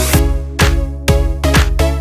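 Background electronic music with a steady kick-drum beat, about two beats a second, over held synth notes.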